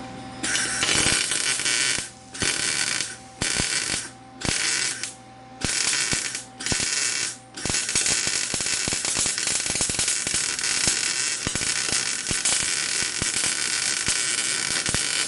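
Wire-feed MIG welder arc crackling as a crack in a snowmobile chassis is welded up: about six short bursts, then one steady run of about seven seconds.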